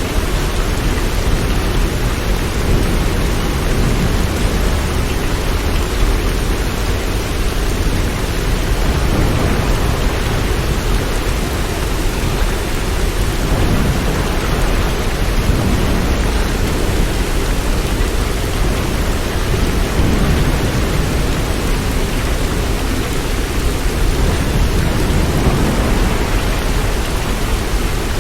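Steady heavy rain: a dense, even hiss with a deep low rumble underneath that swells slightly now and then.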